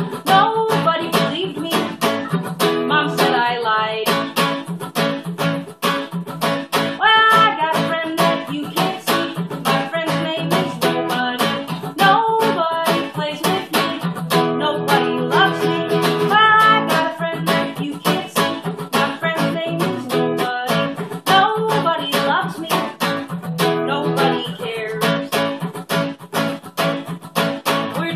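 A woman singing a song while strumming an acoustic guitar in a steady rhythm, her voice coming in phrases over the chords.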